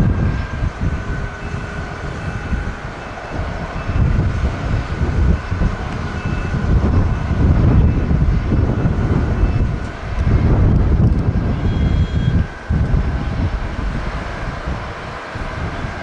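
Jet engine noise of a Japan Airlines Boeing 737-800 airliner, buried under heavy wind buffeting on the microphone: a low rumble that swells and dips in gusts, with a steady high whine running through it.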